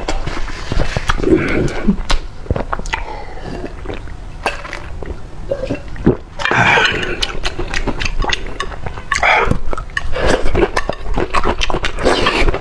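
Close-miked mukbang eating sounds: wet chewing and mouth smacking of fried noodles and boiled egg, with many small clicks scattered throughout.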